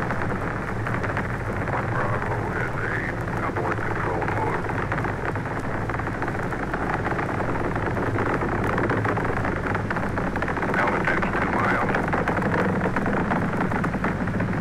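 Recorded roar of the Saturn V rocket climbing after liftoff: a steady, dense rumbling noise with no treble, faint voices now and then beneath it.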